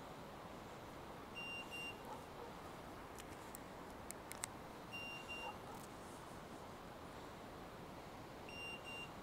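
A hunting dog's beeper collar giving pairs of short, high beeps every three to four seconds. A few sharp clicks come about three to four seconds in.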